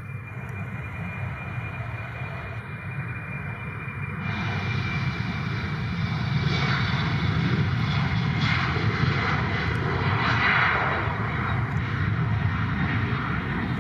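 Embraer E-Jet airliner's twin GE CF34 turbofans at takeoff power during the takeoff roll: a jet roar with a high whine that grows louder and fuller, filling out about four seconds in as the aircraft accelerates toward rotation.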